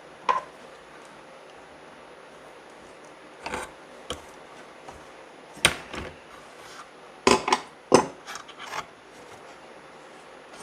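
Hands working wire ends and a butt connector with small hand tools: a handful of short clicks and scraping rubs, scattered with quiet gaps between them, as the vacuum cord's black wire is spliced.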